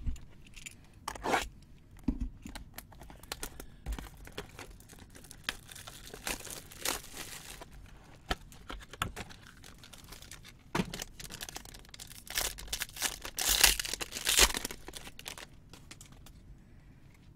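A sealed Topps Inception trading-card box being torn open and its plastic-wrapped pack crinkled and pulled free, amid handling rustles and clicks. The loudest tearing and crinkling comes a few seconds before the end.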